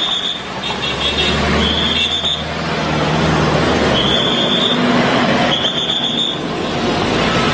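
Cars and SUVs driving past with their engines running over steady road and outdoor noise. A short, high-pitched tone sounds every second or two.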